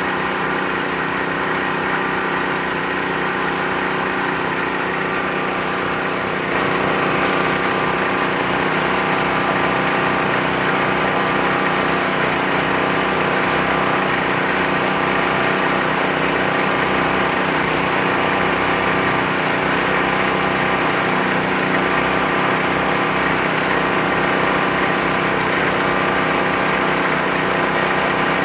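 Small engine of a well-drilling machine running steadily under load; about six and a half seconds in it gets louder and stays at that level.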